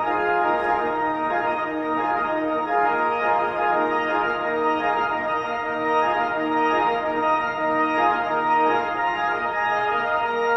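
Church pipe organ playing the postlude after the dismissal: sustained full chords that move from one to the next every second or so.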